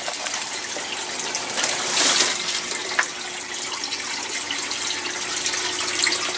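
Steady rush of running water from an aquaponic system, with a brief rustle of dry pea vines being pulled out about two seconds in.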